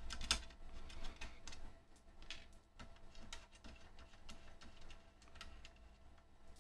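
Faint, irregular metallic clicks and taps as a 5.5 mm nut driver works small nuts off a bench multimeter's chassis.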